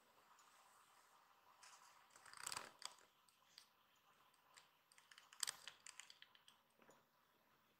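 Faint rustling and clicking in two short bursts, about two seconds in and again a little past five seconds, over near silence.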